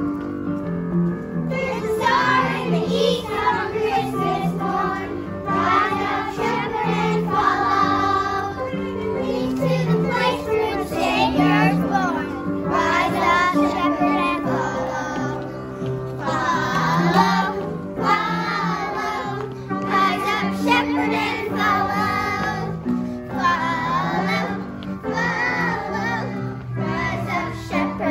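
A group of young children singing a Christmas song together over instrumental accompaniment that has a steady bass line.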